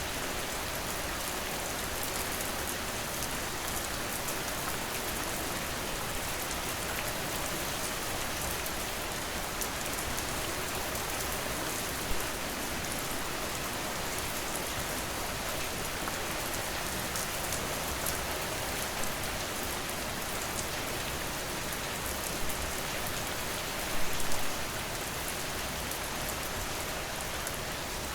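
Steady rain falling on a surface, an even hiss of many drops, with a few brief louder spatters, the biggest about 24 seconds in.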